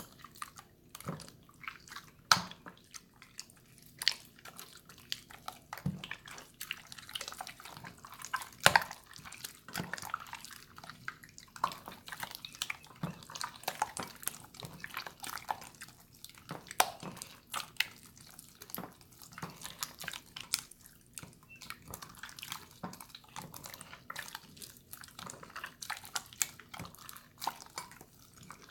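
Hands squishing and poking a jiggly water slime: irregular wet clicks, squelches and pops, a few of them sharply louder.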